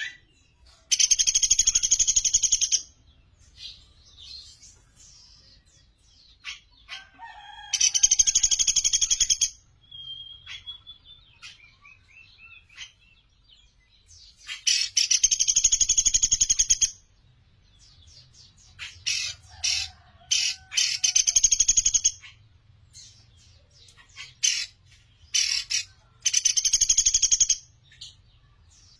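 Pelatuk beras, a small woodpecker, giving loud rapid rattling trills of about two seconds each, five times, with short sharp call notes in between.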